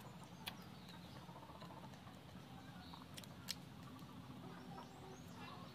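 Quiet eating of cream cake with a plastic spoon: a few sharp clicks, the loudest about three and a half seconds in, over a low steady hum.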